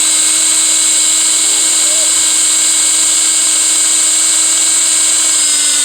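An electric motor running steadily with a fan-like hiss and a constant hum, sagging slightly in pitch and then shutting off abruptly near the end.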